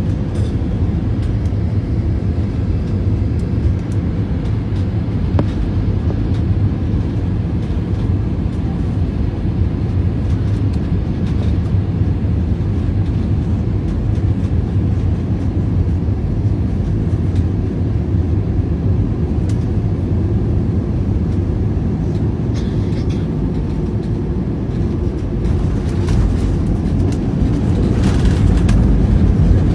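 Airliner cabin noise during the landing: a steady low rumble of engines and airflow, growing louder with more hiss over the last few seconds.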